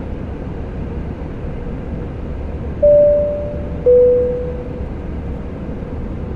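Airbus A320 cabin chime sounding about three seconds in: a high tone held for about a second, then a lower tone that fades away. Underneath runs the airliner's steady cabin hum in flight.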